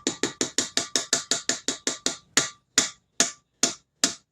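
Quick, regular taps of a kitchen utensil against a mixing bowl, about six a second at first, slowing to a few a second over the last couple of seconds.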